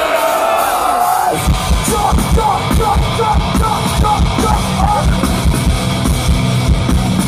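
Live heavy metal band: a held guitar note rings out, then about a second and a half in the full band crashes in with distorted guitars and fast, pounding kick drums.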